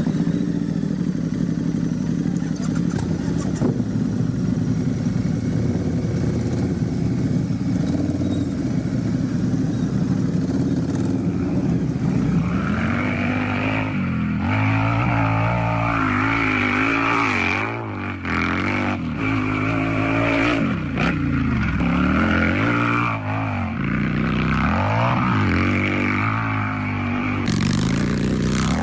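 Motorcycle engine idling steadily, then revved up and down again and again from a little under halfway through, the pitch rising and falling with each rev.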